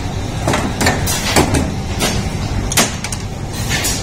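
PU footwear factory machinery running: a steady low hum with short, sharp hissing bursts at uneven intervals, several to the second at times.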